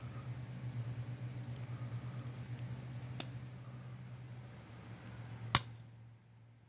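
Mains-powered wire shorting against metal conduit and arcing: a steady low electrical buzz with a sharp snap about three seconds in and a louder crack about five and a half seconds in, after which the buzz cuts out.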